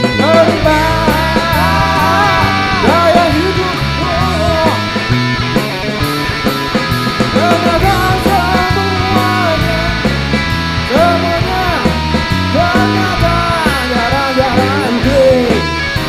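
Rock band playing live: a man sings a bending melody line over drums and guitar, with a steady beat.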